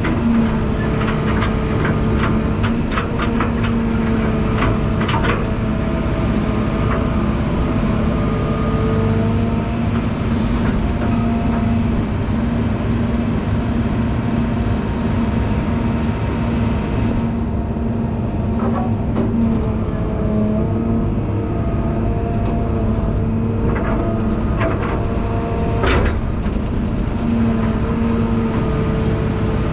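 Heavy equipment engine running steadily at a constant speed, with scattered metal clanks and knocks, several close together in the first few seconds and more later on.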